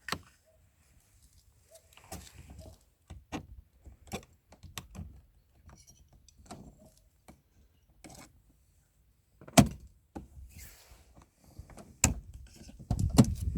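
Scattered clicks, clinks and knocks of hands and tools working on a car door, with one sharp knock a little under ten seconds in and heavier thuds near the end.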